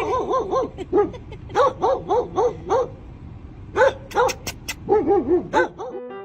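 A dog yipping in quick runs of short calls, about four or five a second, in several bursts separated by brief pauses.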